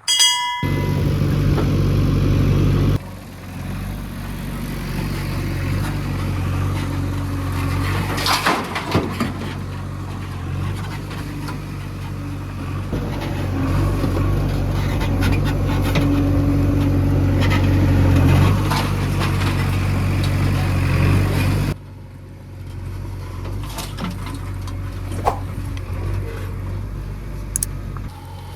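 Diesel engine of a JCB 3DX backhoe loader running under working load while loading murum, with scattered knocks and rattles of earth and bucket. The level changes abruptly twice.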